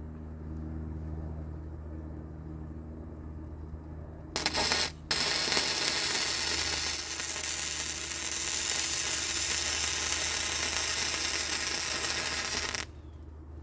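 Flux-core wire-feed welder arc crackling and hissing as a bead is laid with .035 flux-core wire. A short burst starts about four seconds in and stops briefly, then a steady run of about eight seconds cuts off near the end. A steady low hum runs underneath.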